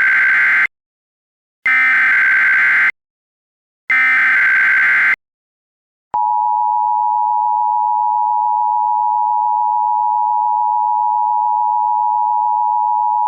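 Emergency Alert System test signal: the end of one burst of the SAME header's digital data screech, then two more bursts of about a second each, a second apart. About six seconds in, the steady EAS attention tone begins and holds.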